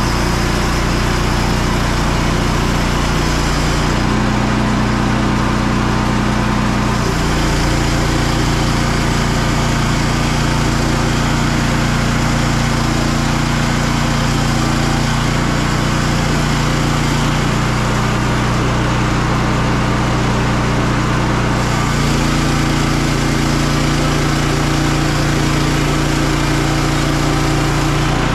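Frontier OS27 portable bandsaw mill running steadily on its small petrol engine while the blade cuts along an ash log. The engine note shifts in pitch a few times as the load changes.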